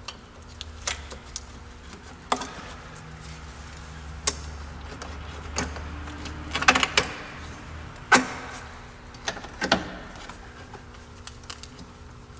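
Steel hose clamp pliers working a spring hose clamp on a rubber radiator hose: a series of scattered metallic clicks and clanks as the clamp is squeezed open and slid back, over a low steady hum.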